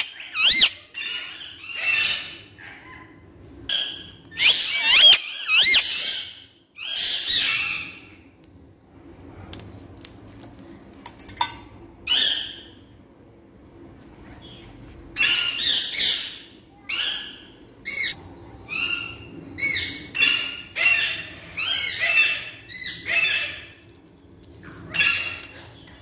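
Indian ringneck parakeet calling in short, shrill, pitch-sliding squawks and chatter, in bursts with a sparser stretch in the middle and a quick run of calls near the end.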